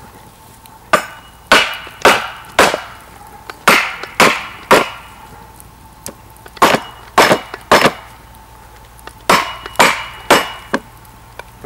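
An axe head striking a wooden board laid over a whole chicken: sharp wooden knocks in groups of three or four, about two a second, with short pauses between groups. The blows break the bird's joints to flatten it for chicken tabaka.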